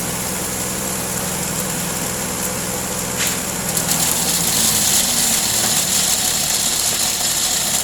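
Small four-stroke brush-cutter engine running steadily, driving a homemade manure grinder. About four seconds in the sound gets louder and hissier as the low engine tone fades.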